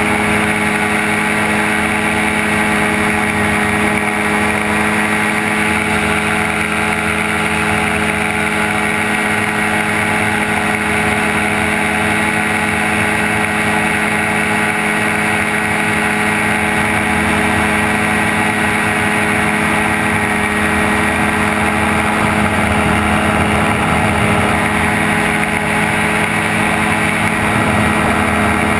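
Gyrocopter engine and propeller running steadily in flight, an even drone heard from an open cockpit with a constant rush of wind noise over it.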